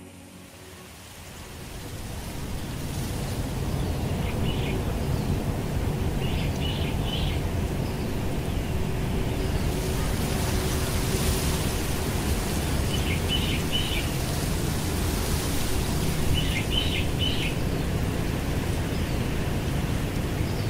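Outdoor nature ambience fading in over the first couple of seconds: a steady rushing hiss with a low rumble, and small birds chirping in short clusters four times.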